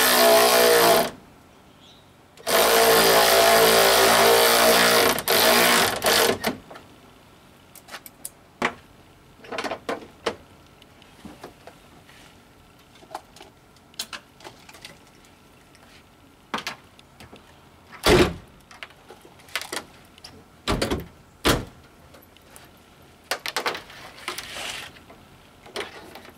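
A cordless power tool drives in the bolts across the top of a Ford Maverick grille: two steady runs of its motor, one short and one about three seconds long. Scattered clicks and knocks of handling follow, the loudest a heavy thump past the middle as the hood is shut.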